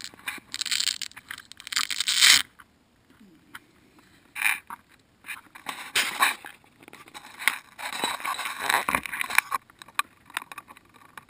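Handling noise: irregular scrapes and rustles as a LiPo battery is pressed onto a multicopter frame and the camera is picked up, carried and set down on concrete. The loudest bursts come in the first couple of seconds.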